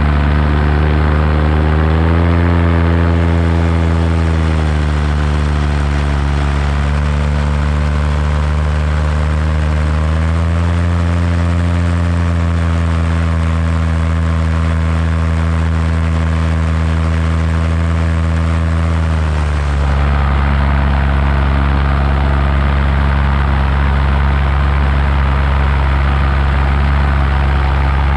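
Paramotor engine and propeller running steadily. The pitch rises as the throttle opens about two seconds in, eases back a few seconds later, rises again around ten seconds in, and drops to a lower steady note about two-thirds of the way through.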